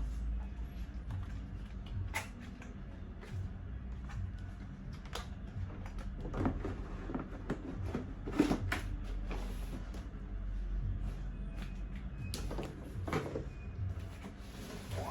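Scattered clicks, knocks and creaks of plastic high chair parts being handled and moved, the sharpest knock about eight and a half seconds in, over a steady low hum.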